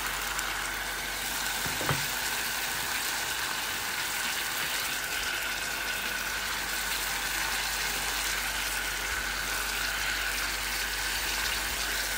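Beef cubes, chopped onion and garlic sizzling steadily in hot butter in a steel pot.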